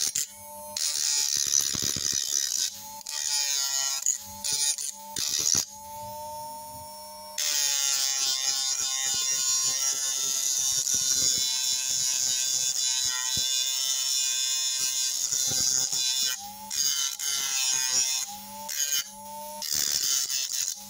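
Small electric motor fitted with a green abrasive disc, whining as it spins and grinding a steel bar. The grinding comes in short passes for the first few seconds, then in one long steady pass through the middle, then in short passes again near the end.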